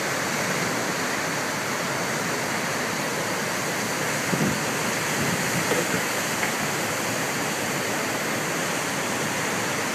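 Steady rushing of a large volume of water pouring from a dam outlet and churning down a concrete channel.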